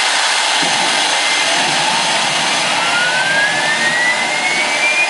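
Homemade turbocharger jet engine running with a loud, steady rushing noise and a whine that climbs steadily in pitch from about a second and a half in as the turbine speeds up.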